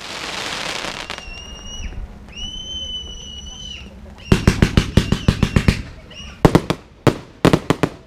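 Fireworks: a crackling hiss as glitter stars burst, then two long steady whistles. About four seconds in comes a rapid string of about ten sharp bangs, followed by two shorter groups of bangs near the end.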